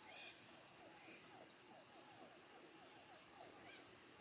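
A steady, pulsing high-pitched insect whine, with short low calls repeating three or four times a second underneath, typical of frogs calling from the water. Faint throughout.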